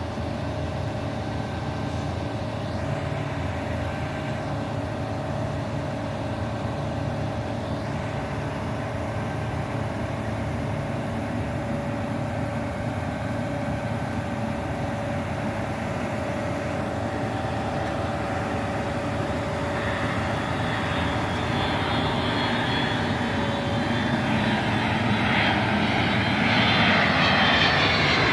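Twin-engine narrow-body jet airliner on landing approach, passing low overhead. Its engine noise builds steadily louder through the second half, with a high whine that falls in pitch near the end. A steady hum sits underneath throughout.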